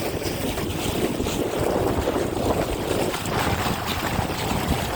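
Boat under way on open water: steady rushing of wind and water, with wind buffeting the microphone.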